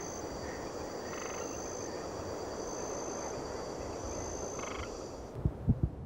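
A dense chorus of croaking frogs, with faint high insect-like tones above it. Near the end it gives way to quick low thumps like a heartbeat.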